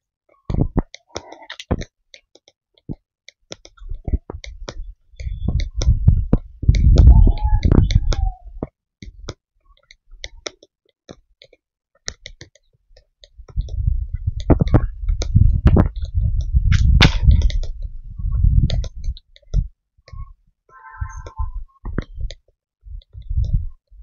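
Footsteps on a dry forest trail, heard as irregular crunching clicks. They come with two long bouts of low rumble on the microphone, one about four seconds in and one from about thirteen to nineteen seconds.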